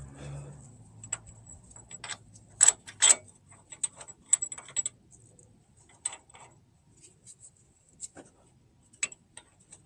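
Irregular light metallic clicks and clinks of hub mounting bolts and tools being handled as new wheel hub bolts are threaded in by hand, with two louder clinks close together about three seconds in.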